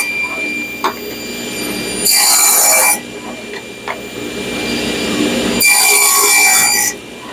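Table saw running and crosscutting pallet-wood slats into short pieces: two cuts, each about a second long, louder than the steady spinning of the blade between them.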